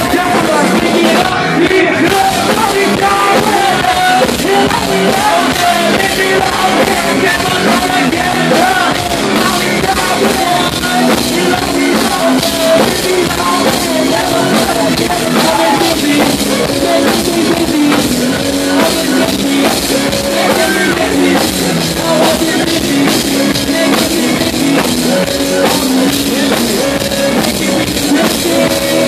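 A live rock band playing loudly, with a singer's voice over a drum kit and band, heard from within the crowd.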